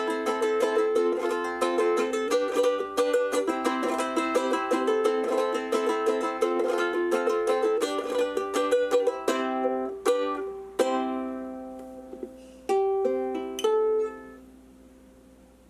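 Tenor cigar box ukulele being played: a quick run of picked notes, slowing after about 9 s into a few separate struck chords. The last chord rings and dies away about a second before the end.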